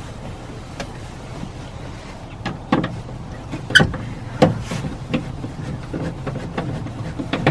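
Scattered clicks and knocks of metal and plastic parts as a Mercedes R-Class rear door latch assembly is worked loose inside the door, about seven sharp ones, the loudest near the middle.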